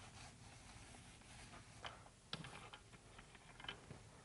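Near silence, with the faint sound of a paint roller on an extension pole rolling primer over concrete: a few light clicks and ticks about halfway through and near the end.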